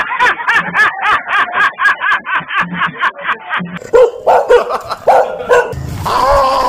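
Recorded dog barking played from a portable speaker: a rapid run of barks, about five a second, for the first three and a half seconds. Then come a few single barks and a drawn-out cry near the end.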